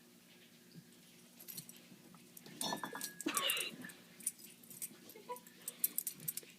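A ferret and a dachshund puppy at play, with scattered light clicks and jingling as they scrabble about. A short, high squeaky cry comes about three seconds in.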